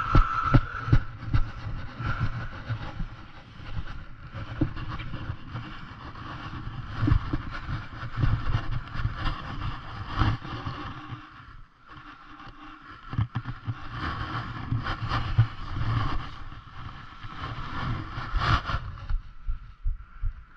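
Wind rumbling on the microphone with irregular thumps and scuffs from the camera being carried and handled on the sand, quieter for a moment about halfway through.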